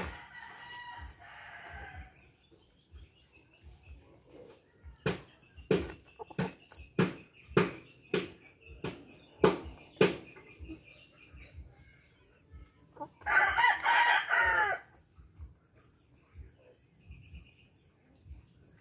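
Heritage chickens feeding on shredded coconut spread on banana leaves: soft clucking at first, then a run of sharp beak taps as they peck at the leaves and ground. About thirteen seconds in, a rooster crows once, loudly, for under two seconds.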